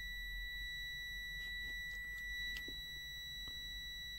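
ANTELVES AN109 multimeter's continuity buzzer sounding one steady, high-pitched beep, with a few faint clicks over it. The beep means the probes are across a low-resistance path, under the meter's 50-ohm continuity threshold.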